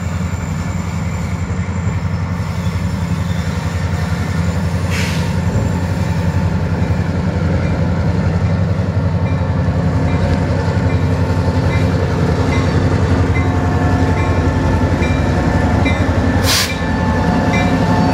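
EMD GP38 diesel-electric locomotive's 16-cylinder two-stroke diesel engine running at low speed as the unit crawls past, its low drone growing louder as it comes alongside. Two brief sharp clicks sound, and a faint short tone repeats about once a second in the second half.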